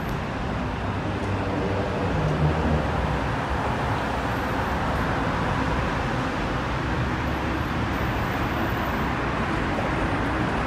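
Steady city street traffic noise, with a low engine rumble swelling briefly about two seconds in.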